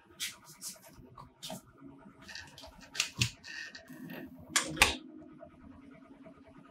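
Handling noise of a camera being picked up and set up: irregular clicks, taps and rustling, with two louder knocks about three seconds in and just before five seconds.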